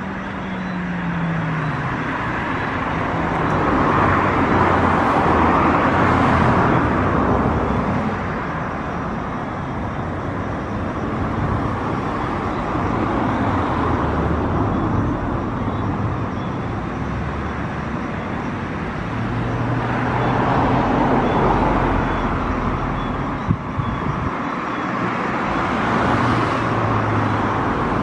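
Traffic noise from passing vehicles, swelling and fading three times over a steady low rumble, with one brief sharp knock late on.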